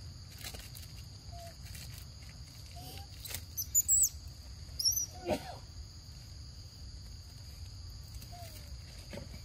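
Forest ambience: a steady high insect drone throughout, with a few short, high bird chirps a little under halfway through, the loudest sounds here, and one brief lower call just after them.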